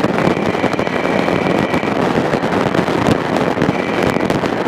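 Cockpit noise of a Thorp T-18 flying a loop: the engine and propeller running with a steady rush of wind over the airframe, and a faint high steady tone that fades in and out.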